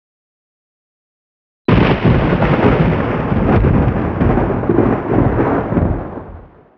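Thunder: starting suddenly about two seconds in with a loud crack, then rumbling unevenly for about four seconds and fading out.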